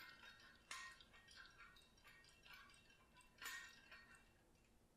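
Faint metallic clinks and rattles: a quick, irregular run of short ringing clicks, two louder ones under a second in and about three and a half seconds in, dying away near the end.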